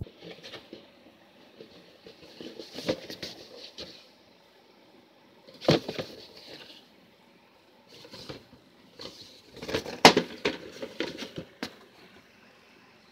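Handling noise of a cardboard toy box being picked up and turned in the hand: scattered rustles, scrapes and knocks in several bursts, the sharpest knock about ten seconds in.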